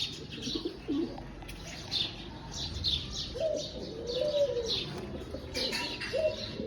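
Pigeons cooing: low, wavering coos about half a second in and again from about three and a half seconds in, over repeated high chirps throughout.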